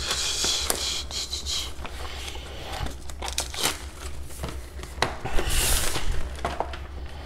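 Paper wrapping crinkling and rustling as it is pulled off a knife box, in irregular spells with a few light knocks.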